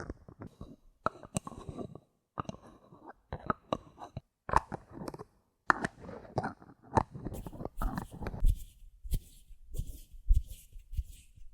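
Bottle caps handled up close: a run of sharp clicks and crackling taps, changing about seven seconds in to short, hissy scratches with low thuds.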